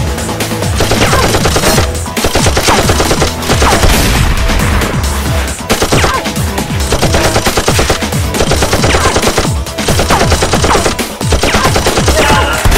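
Rapid automatic-gunfire sound effects in bursts of a few seconds with short breaks, over background music.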